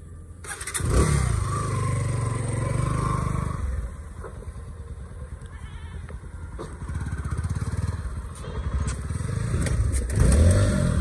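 Motorcycle engine revving up as the bike pulls away, running at lower revs as it rides and turns, then revving again near the end.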